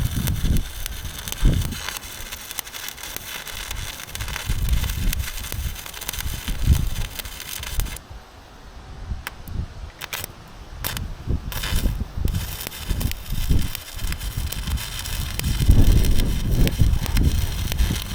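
Arc welding crackling steadily, breaking off for a few seconds in the middle with only short bursts before running on again. Wind gusts rumble on the microphone.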